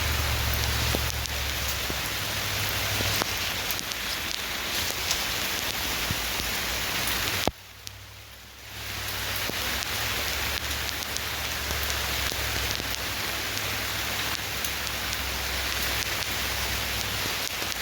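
Steady rain falling, with many small drop taps across the hiss. About seven and a half seconds in it cuts out abruptly, then fades back in a second or so later.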